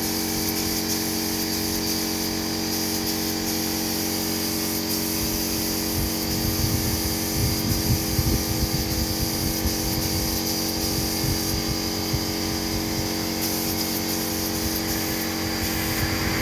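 Compressed-air spray gun hissing steadily as a finish coat is sprayed onto a wooden headboard, over a steady machine hum. A few low knocks come in around the middle.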